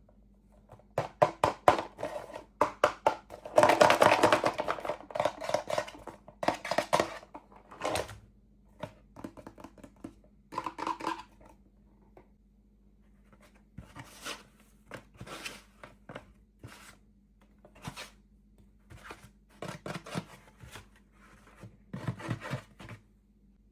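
Toy packaging opened by hand: crinkling and tearing with scattered clicks and taps, densest about four seconds in, with a lull around the middle before more light taps.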